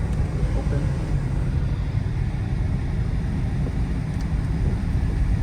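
Dodge Charger R/T's 5.7-litre Hemi V8 and tyres heard from inside the cabin, a steady low rumble while driving through deep snow.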